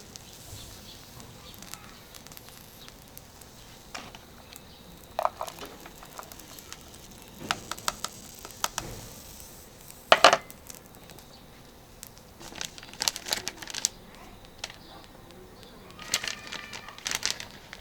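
Intermittent handling noises: bursts of crinkling and a few light metallic clinks, some with a short ring, the loudest about ten seconds in.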